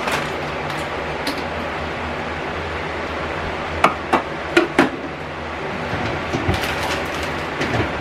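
Sharp knocks and clinks of containers and plastic bins being handled in an open refrigerator: four close together about four seconds in, then a few softer ones near the end, over steady background noise.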